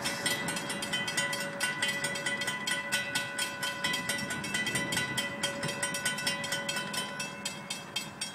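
Railroad grade-crossing warning bell ringing in rapid, even strokes while the crossing gates lower for an approaching train, then stopping at the very end.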